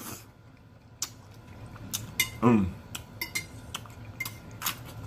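A metal fork clinking and scraping on a plate in irregular sharp clicks, some with a short ring, starting about a second in. About two and a half seconds in, a short voiced hum from the eater falls in pitch.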